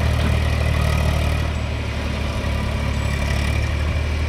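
Eicher 380 three-cylinder diesel tractor engine running steadily under load in first gear, pulling a trolley heaped with soil.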